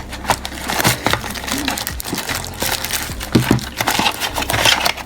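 Cardboard and plastic packaging being handled and torn open: irregular crinkling, scraping and sharp clicks.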